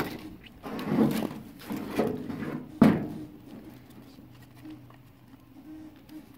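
Hard knocks and clatter of a Chevy Volt battery module being handled and tipped up by its plastic top frame: four knocks about a second apart, the last one loudest, then it goes quiet.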